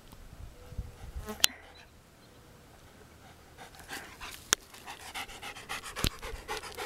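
Doberman panting quickly, the panting starting up about halfway through and carrying on, with a few sharp clicks in between.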